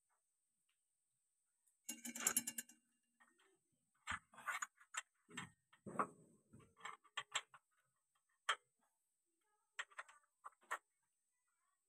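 Small metal tractor clutch-fork parts clinking and knocking as they are handled and fitted by hand: a short rattle about two seconds in, then irregular clicks and knocks.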